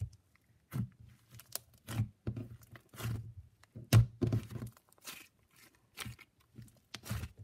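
Butter slime being stretched, folded and pressed by hand, making irregular crackling clicks and pops, the "sizzles" of a well-aerated slime. The loudest pop comes about four seconds in.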